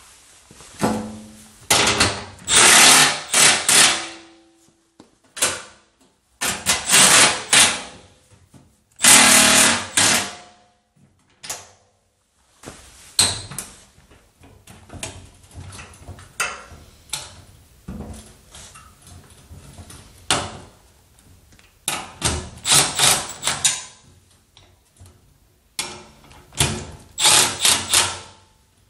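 Nuts being run down onto the steel wheelbarrow's assembly bolts with a socket tool, in several loud bursts of one to two seconds each. Smaller knocks and clicks of metal parts being handled fall between the bursts.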